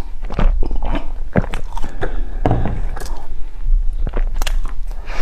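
Close-miked chewing of soft, crumbly chocolate bread: irregular wet mouth clicks and smacks.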